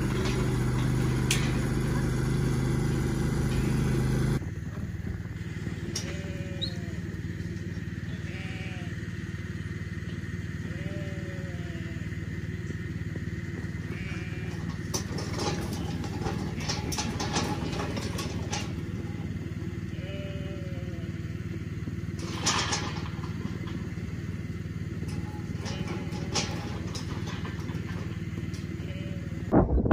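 Sheep bleating, short calls every few seconds, over a steady low engine-like hum, with scattered clicks and knocks as the mob moves. The sound changes abruptly about four seconds in, at a cut.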